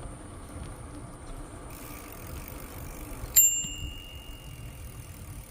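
A bicycle bell struck once about three seconds in: a single bright ding that rings on for about a second and a half, over the steady low rumble of the bike rolling along the trail.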